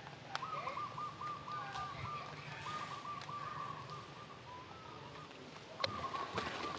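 A bird singing a phrase of short, quickly repeated looping notes, over and over. Near the end, louder rustling and clicks start up.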